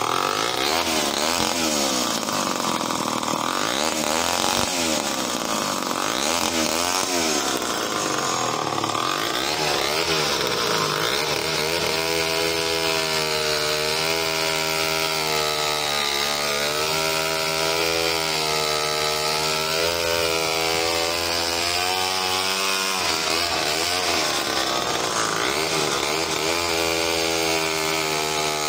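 Homelite C51 77cc two-stroke chainsaw running hard, its pitch swinging up and down for the first ten seconds or so, then held steadier and wavering as it cuts through wood. The engine sounds lazy, which the owner puts down to low compression.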